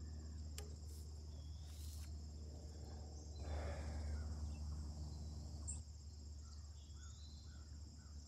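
Crickets chirring steadily in high, even bands over a low steady rumble, with a soft swell of rustling noise around the middle.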